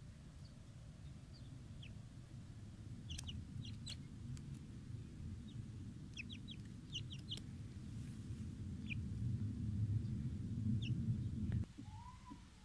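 Young grey francolin giving short high peeps, some singly and some in quick clusters, over a louder low rumble that cuts off suddenly near the end.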